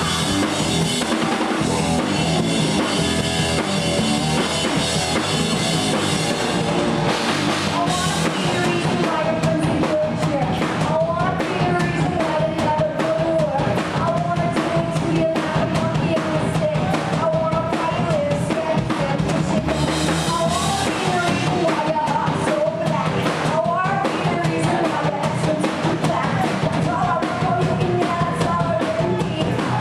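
A live rock band playing, with drum kit and a woman singing lead from about eight seconds in.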